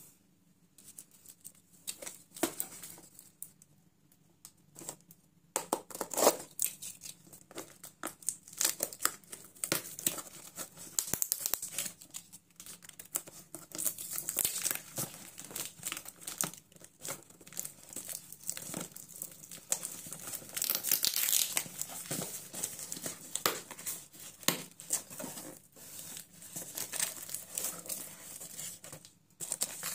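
Cardboard parcel in plastic wrap being torn open by hand: crinkling plastic and ripping tape and cardboard. It comes as an irregular run of crackles and tears that starts in earnest about six seconds in, after a few scattered clicks.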